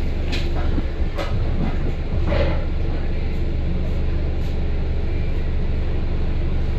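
Double-decker bus running, heard from inside: a steady low engine drone with road rumble, and a few brief rattles and knocks in the first two and a half seconds.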